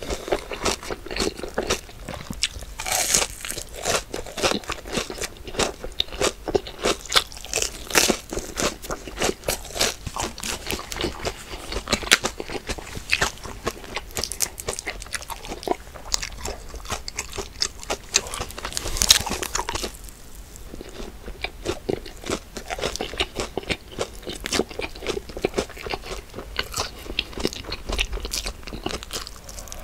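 Close-miked eating: a person biting and chewing crunchy food, a dense run of crisp crunches with a few louder bites.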